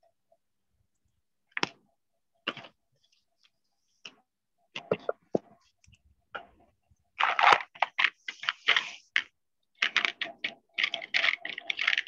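Keystrokes and clicks on a laptop keyboard: a few single clicks at first, then quick runs of typing in the second half.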